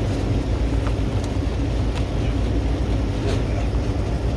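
Steady low machinery hum and rumble with a faint constant tone, and a few light clicks.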